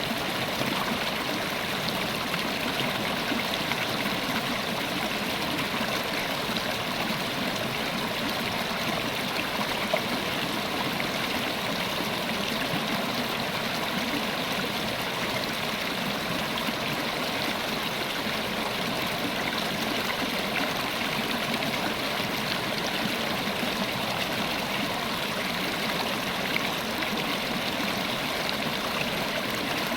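A river running: steady rushing and gurgling of flowing water.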